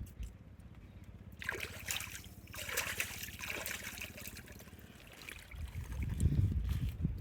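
Water splashing and trickling in a couple of bursts from about a second and a half in, then low dull knocks and rumbling near the end.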